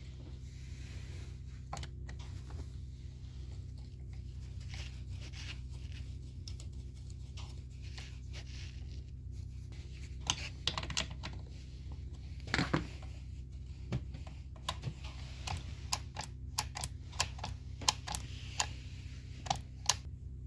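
Light clicks, taps and a scrape of small parts and tools being handled, irregular and coming mostly in the second half, over a steady low hum.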